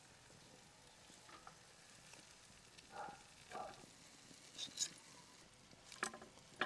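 Faint clicks and scrapes of a metal knife and tongs working grilled quail off the spits of a vertical grill and setting them down, over a low steady hiss. The sharpest clicks come near the end.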